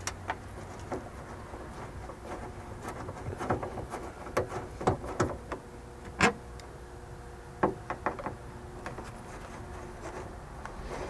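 Phillips screwdriver backing screws out of a plastic dome-light housing in a car headliner: scattered small clicks and scrapes, the sharpest a little over six seconds in.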